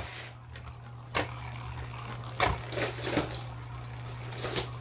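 A few sharp small clicks and clatters of a Beyblade spinning top and its plastic and metal parts, spaced about a second apart.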